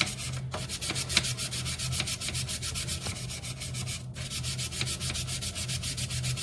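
Toothbrush scrubbing stained plastic trim panels with cleaning powder, in fast, even back-and-forth strokes, several a second.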